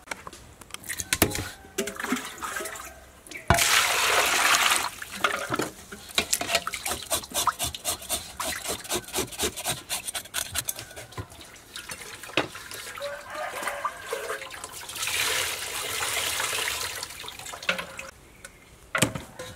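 Water sloshing and splashing in a metal basin as a whole snakehead fish is washed by hand. There are two longer bursts of splashing, one a few seconds in and one near the end, with many quick short wet noises between them.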